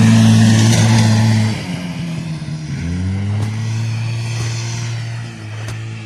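Buran snowmobile's two-stroke engine running at steady high revs; about a second and a half in it gets quieter and its pitch sinks, then it climbs back up about three seconds in and holds steady.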